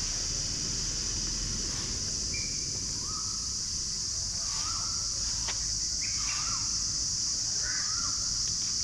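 Steady high-pitched drone of insects, with short bird chirps and whistles scattered through it, more of them in the second half, over a low background rumble.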